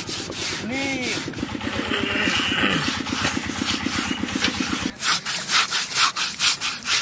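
Lumps of brick scrubbed hard back and forth over the skin of a singed pig carcass, a continuous rasping scour that cleans off the burnt hair. From about five seconds in the scrubbing breaks into separate strokes, about five a second.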